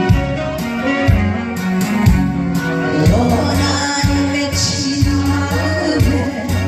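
Loud live music with a steady drum beat and singing: an upbeat Korean trot song played over a PA system.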